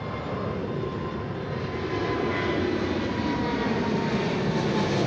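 Boeing 777-300ER's twin GE90-115B turbofans at takeoff thrust as the jet climbs out, a dense rushing engine noise growing steadily louder, with a faint whine that drifts slightly lower in pitch.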